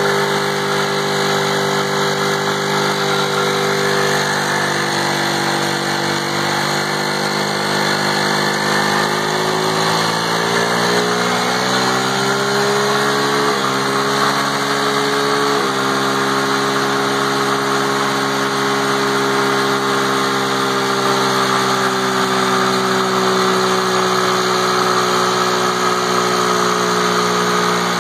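50cc youth ATV engine revved hard in a stationary burnout, its chained-down rear tire spinning on wet, chain-lubed pavement. The engine pitch sags a little, then climbs again about ten to thirteen seconds in and holds steady.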